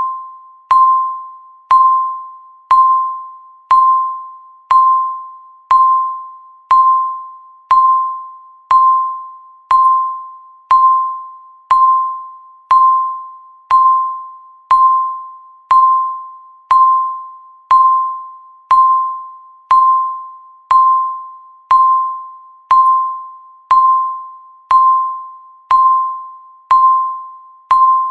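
Countdown timer's electronic beep sounding once every second, a single ping of about 1 kHz that starts sharply and fades away before the next.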